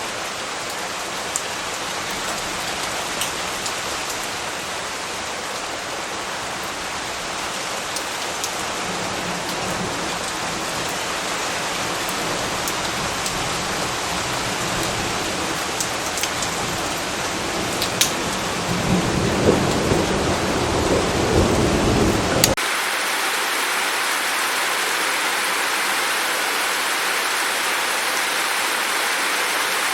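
Steady rain with scattered sharp drip ticks, and a low rumble of thunder that swells about two-thirds of the way in. The sound then cuts off abruptly into a steadier, brighter rush of rain or running water.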